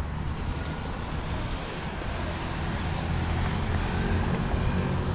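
A motor vehicle's engine running close by, growing gradually louder, over a steady wash of street noise.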